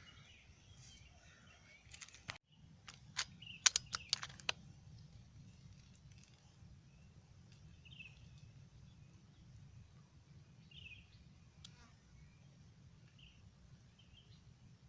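Small birds chirping faintly, short calls every couple of seconds over a low steady outdoor hum. A few sharp clicks and knocks come about three to four seconds in.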